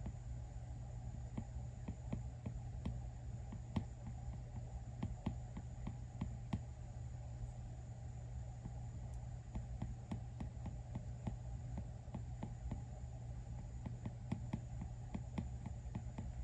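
Apple Pencil 2 tip tapping and sketching on the iPad Pro's glass screen: many short, soft taps at an uneven pace. A steady low hum sits beneath them.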